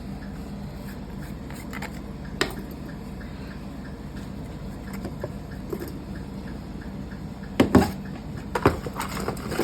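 A steady low hum with a few sharp clicks and knocks, the loudest a close pair near the end, like small hard objects being handled.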